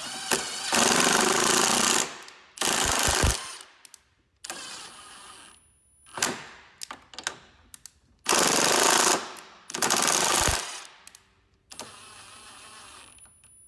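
Impact gun hammering on the locking nuts of a snowmobile's steering post bushing block: four loud rattling bursts, two near the start and two past the middle, with shorter, quieter runs of the tool in between. The nuts are being run down tight, then backed off and snugged.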